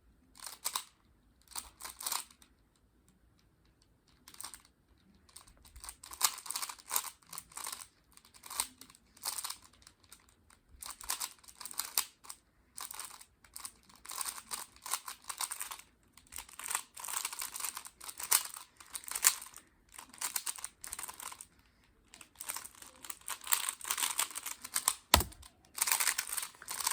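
3x3 Rubik's cube being turned fast by hand in a timed speedsolve: dense runs of quick plastic clicking and clacking as the layers turn. There are a few quieter seconds near the start, and one sharp knock near the end.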